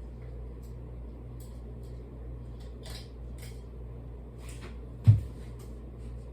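52-inch Hunter Leighton ceiling fan running with a steady low motor hum and air noise, with a few faint light clinks. One sudden low thump about five seconds in.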